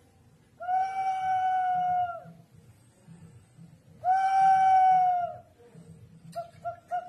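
Ceramic whistling jar sounding as it is tipped: two long, steady whistles, each sagging in pitch as it dies away, then near the end quick warbling chirps, about four a second, like a bird call.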